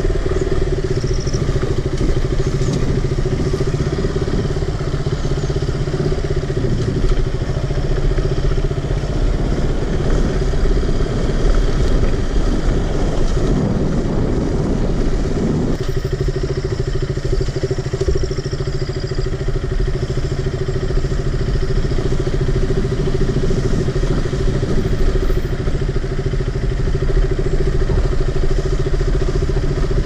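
Motorcycle engine running at low speed on a rough dirt track. The note is steady, then rises and falls for several seconds in the middle before settling again.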